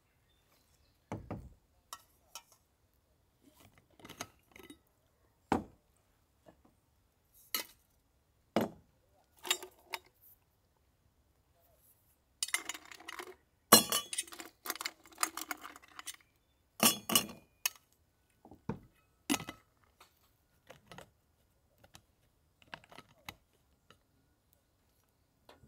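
Ice cubes clattering out of a stainless steel insulated jug into a stainless steel cup, in two rattling runs about halfway through. Scattered knocks and clinks come before and after, from the jug and cup being handled and set down.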